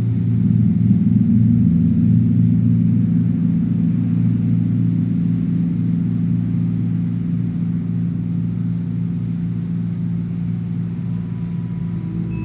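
Low-pitched chapel temple chimes ringing, struck again right at the start, with several deep tones that waver against one another and slowly fade.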